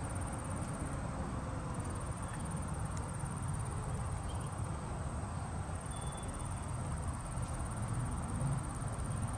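Outdoor background noise: a steady low rumble with a thin, high-pitched pulsing whine over it, which breaks off briefly twice, and a couple of faint short chirps.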